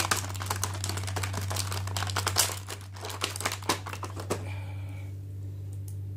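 Plastic and cardboard packaging crinkling and clicking as an action figure is pulled out of its box and blister tray, dense for the first couple of seconds, then scattered clicks that die away about four seconds in. A low steady hum runs underneath.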